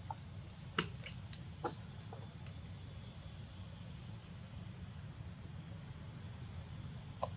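Quiet forest ambience with a steady low rumble, broken by a few sharp clicks, the loudest about a second in and another near the end, and a thin high whistle lasting about a second around the middle.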